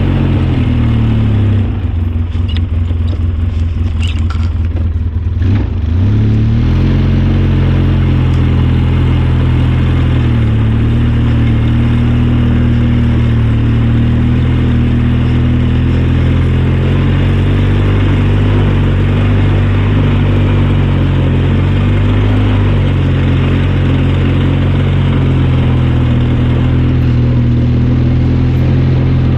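Four-wheeler (ATV) engine running slow and low for the first few seconds, then picking up about six seconds in and running steadily.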